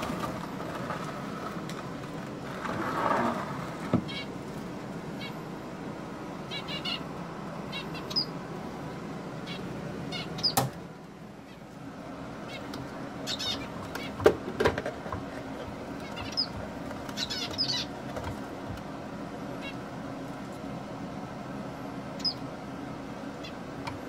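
Zebra finches giving short nasal beeping calls now and then over a steady hum, with a few sharp wooden knocks as the wooden nest box is handled, the loudest about two-thirds of the way in.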